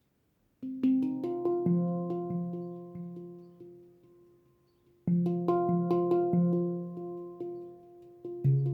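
Leaf Sound Sculpture handpan in F Voyager tuning played by hand: a phrase of struck notes, each ringing on with overtones and fading. A second phrase starts about five seconds in, and a deeper bass note enters near the end.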